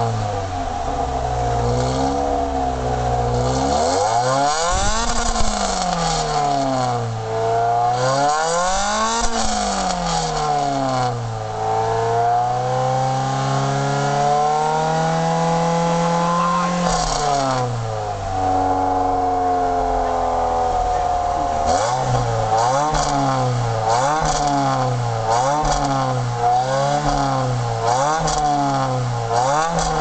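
MGF's four-cylinder K-series engine through a Milltek aftermarket exhaust, revved at standstill: quick throttle blips, then larger rises and falls in revs. About halfway it climbs slowly and holds before falling back to idle, and it ends with a run of quick blips about once a second.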